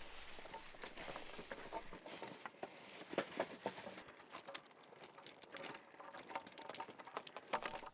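Footsteps crunching and rustling on dry leaves and twigs along a forest path, a steady run of small irregular crackles.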